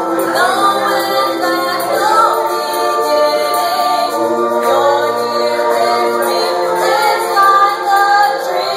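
Several voices singing a song together, a woman's voice among them, sung through a microphone.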